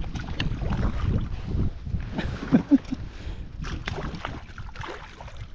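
Water splashing and knocks against the kayak as a hooked trout is brought alongside and netted, over wind on the microphone. Two brief loud knocks come close together about two and a half seconds in.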